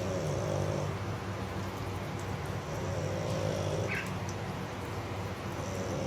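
Bulldog snoring while asleep on its back, one snore about every three seconds, each lasting about a second, over the steady splash of tap water running into the tub.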